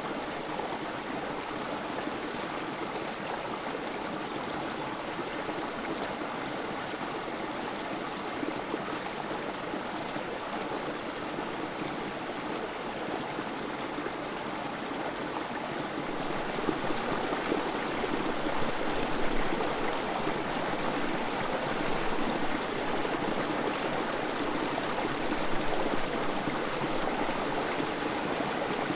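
Creek water trickling over rocks in a small cascade, a steady rushing flow that grows a little louder about halfway through.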